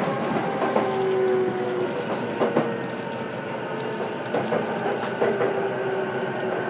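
Running sound of a JR East E233-7000 series electric train, heard from inside its motor car: wheel-and-rail rumble with clicks over rail joints and a few faint steady motor whines. The noise eases off gradually over the seconds.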